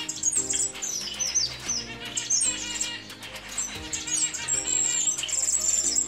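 A cage of small finches, Gouldian finches among them, chirping and calling: many short, high, sliding chirps overlapping throughout. Background music with sustained chords plays underneath.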